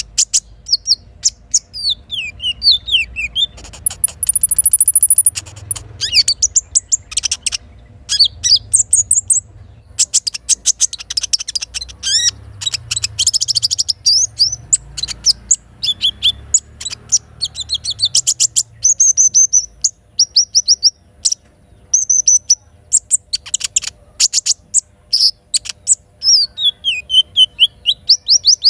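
Little spiderhunter (sogok ontong) singing: rapid series of sharp high chirps and trills, some runs of falling notes and a brief held high whistle, over a faint low steady rumble of running water.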